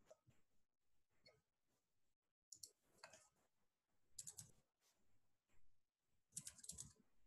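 Near silence with a few faint clicks and rustles, in scattered short clusters.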